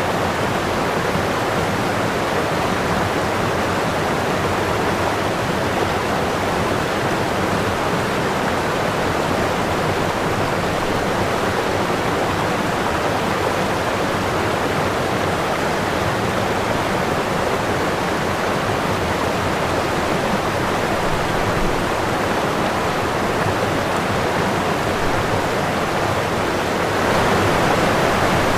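Running water rushing steadily, a dense even hiss; about 27 seconds in it grows louder and brighter.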